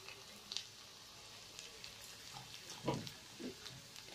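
Faint sizzle of spice masala frying in oil in a steel kadhai, with a light click of the spatula and two short low sounds about three seconds in.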